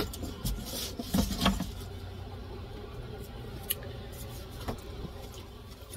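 Handling noises as items are picked up and moved: light rustling and clicks, busiest in the first second and a half, then a few scattered ticks.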